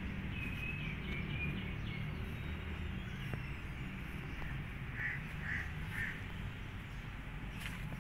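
Steady outdoor background rumble, with three short high-pitched animal calls about half a second apart around five seconds in.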